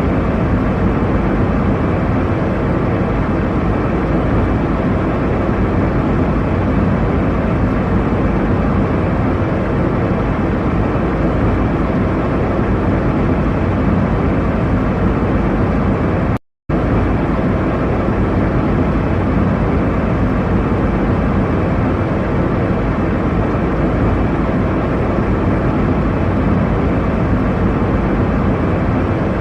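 Steady jet airliner cabin noise, an even rushing drone with no change in pitch. It cuts out for a split second about halfway through.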